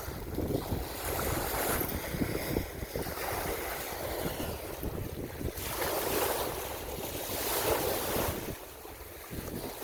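Sea waves washing in and ebbing in repeated swells, with wind rumbling on the microphone.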